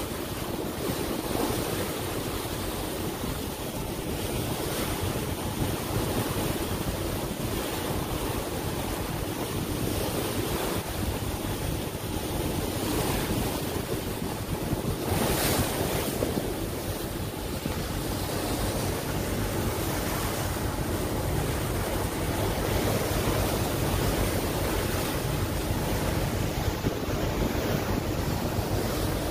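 Sea water rushing past a moving ferry, with wind buffeting the microphone, steady throughout and with a brief louder hiss about halfway through.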